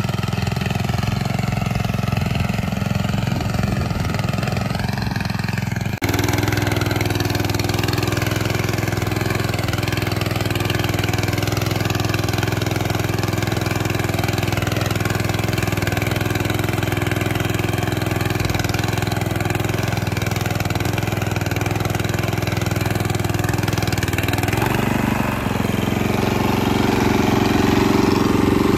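Walk-behind tractor's small single-cylinder petrol engine running steadily while it pulls a hiller through loose soil, cutting a furrow. The sound shifts abruptly about six seconds in, and its pitch changes again near the end.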